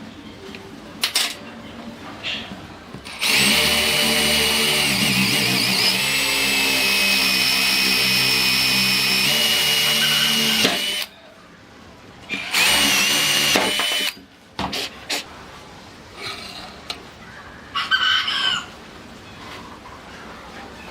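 A small electric power tool's motor runs at speed for about seven seconds, with a steady high whine, then runs again briefly a couple of seconds later. Short clicks and knocks come before and after the runs.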